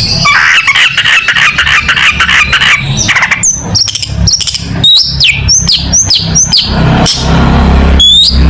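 Long-tailed shrike (cendet) singing: a rapid, stuttering chatter, then a run of short whistled notes, each sliding downward, about two a second, with a low steady hum underneath.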